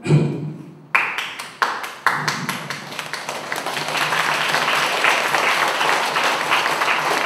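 Audience applauding: a few separate claps about a second in, then many hands clapping together, swelling into steady applause.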